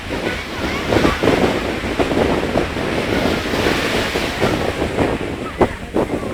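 Stormy wind buffeting the microphone over rough surf and waves, a loud continuous rumble, with two sharp knocks near the end.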